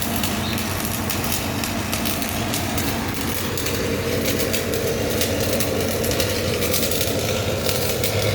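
Stick-welding arc with an E6013 (60/13) electrode, crackling continuously over a steady low hum.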